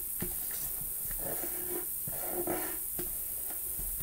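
Green origami paper being creased and smoothed by hand on a tabletop: soft taps and rustles, with two brief hazy sounds about a second and two seconds in.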